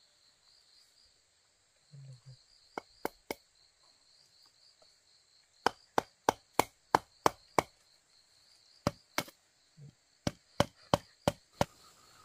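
Chopping with a blade: sharp single blows in runs, up to about three a second, with pauses between the runs. Insects chirp steadily underneath.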